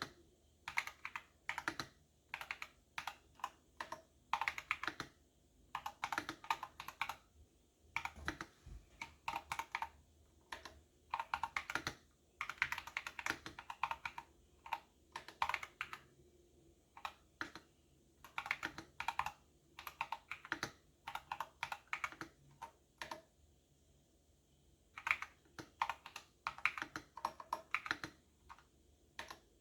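Typing on a computer keyboard: fast runs of key clicks broken by short pauses, with a longer pause a little past two-thirds of the way through.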